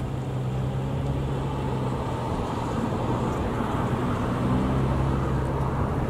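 An engine running with a steady low hum, getting slightly louder over the few seconds.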